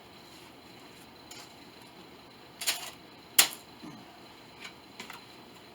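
A few light clicks and taps from objects being handled, the loudest a sharp click about three and a half seconds in, just after a brief scrape.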